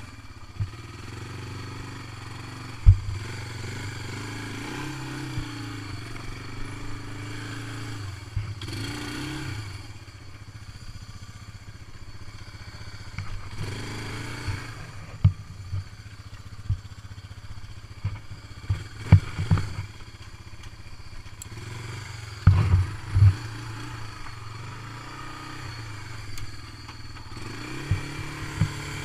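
ATV engine running at low speed over a rough, muddy trail, rising briefly in pitch a couple of times. Sharp knocks and clatter from the machine jolting over ruts come and go, with a cluster of the loudest ones about two-thirds of the way through.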